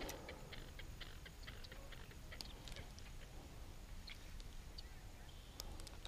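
Quiet lakeside ambience: a faint background hiss with many small, irregular clicks and short chirps, like marsh frogs or insects calling.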